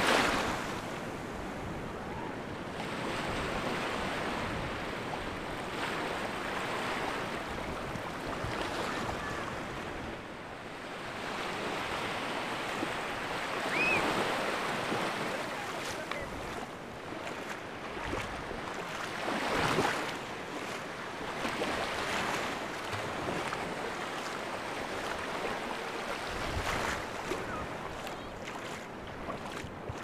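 Sea surf: small waves washing in and draining over shallow water on a sandy beach. A continuous hiss swells and ebbs every few seconds, with stronger surges at the start and about two-thirds of the way through.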